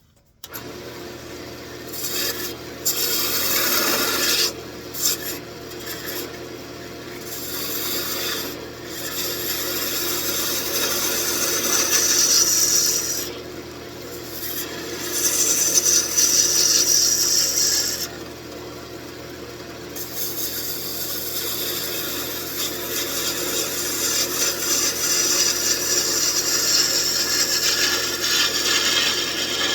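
Wood lathe running while a turning tool cuts into the spinning wood of an old table leg, shaping the ornament's ball. It makes a scraping hiss in long passes over the lathe's steady hum, easing off twice near the middle as the tool comes away.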